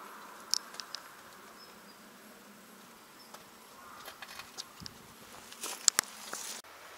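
Faint outdoor background with a few scattered light clicks and ticks, the sharpest about six seconds in.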